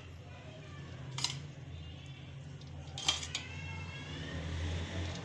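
A metal utensil clinking against a cooking pot twice, a little over a second in and about three seconds in, over a steady low hum.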